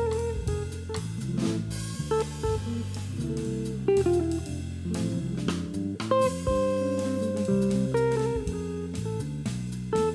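Ibanez semi-hollow electric guitar playing a jazz solo of changing single notes and chords, with a drum kit accompanying.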